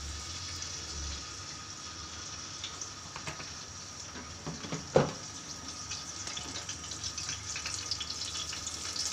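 Cooking oil poured from a plastic bottle into an empty steel pot for about the first second, followed by a low steady hiss with small scattered crackles that grow toward the end as the oil heats. A single sharp tap about five seconds in.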